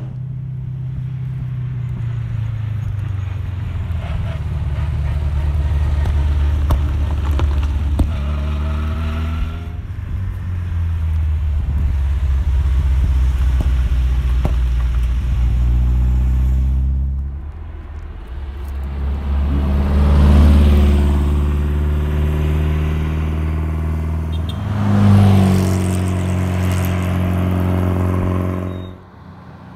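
Historic rally cars passing one after another at speed, their engines revving hard. The engine note rises as the cars accelerate and falls away as they go by, with loud close passes about two-thirds of the way through and again near the end.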